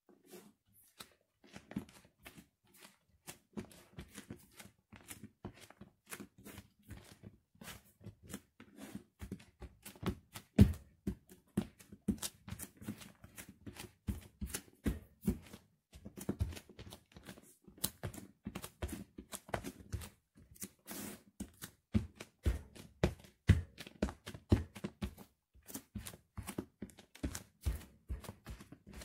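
Bare feet stomping on a loaf of white bread on a tile floor: a dense run of quick crackles and crinkles as the flattened bread and crust are crushed, with dull thumps of the footfalls.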